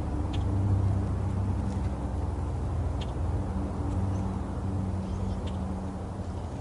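Steady low engine hum of motor traffic, easing slightly towards the end, with a few faint short high ticks.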